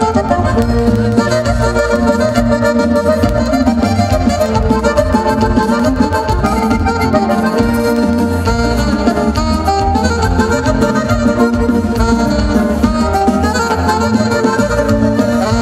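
Live band music led by accordion, with steady low bass underneath.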